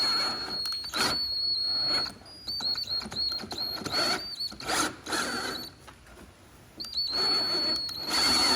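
Electric drill with a 10 mm bit boring out a broken hood pivot-pin hole, its motor whine starting and stopping in short trigger bursts, then running steadily near the end.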